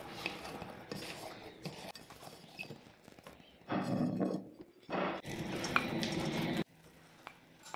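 Kitchen handling sounds: starch dough worked by hand in a glass bowl, then chopsticks clinking and scraping against a glass bowl as scrambled egg is tipped into a stainless steel bowl. The sound cuts off suddenly about a second before the end.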